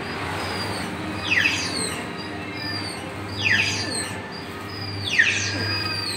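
A coin-operated kiddie ride's speaker plays a looping electronic tune: a chirpy, falling whistle-like sweep repeats about every two seconds, with higher beeping notes between, over a steady low hum.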